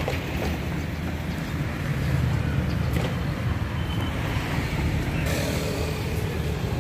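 Steady rumble of road traffic on a busy street, with no single vehicle standing out.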